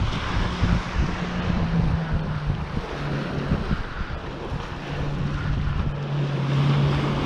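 An RNLI inshore lifeboat's outboard engines drone across the water, their pitch dropping slightly as it runs past and thinning out for a moment about four seconds in. Wind buffets the microphone over the wash of surf on the shingle.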